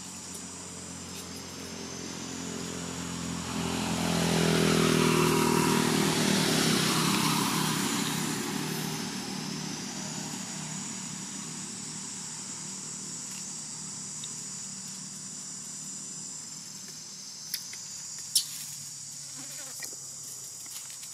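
A motor vehicle passes by: its engine grows louder from about three seconds in, is loudest around five seconds, and fades away by about twelve seconds. Insects buzz steadily throughout.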